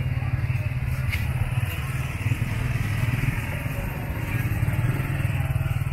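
Steady low rumble of motorbike engines in a busy market street, with a haze of general street noise.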